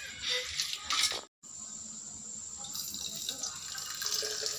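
Boiled, cooled milk being poured from a steel bowl into a plastic baby feeding bottle, a steady liquid pouring sound, after a few short clinks of a spoon against the steel bowl at the start.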